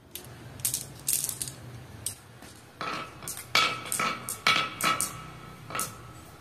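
Glass marbles being set down into a wooden marble run, clacking against each other and the wood. The sharp clicks come a dozen or so times, thickest and loudest in the second half.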